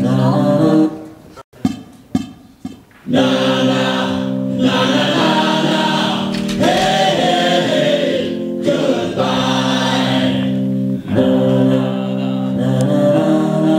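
A group of men singing together in chorus, holding long chords with a few short breaks.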